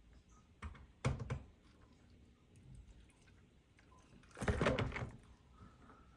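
Handling noises from a small diecast toy car: a few light clicks and knocks about a second in, then a brief, louder scuffing rustle about four and a half seconds in.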